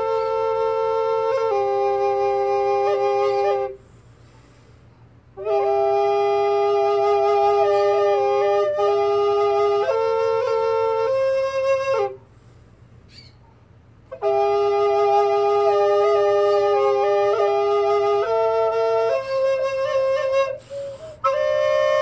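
Double recorders, two recorders played at once by one player, sounding two notes together in a slow melody. It comes in three phrases with short pauses after about four seconds and about twelve seconds.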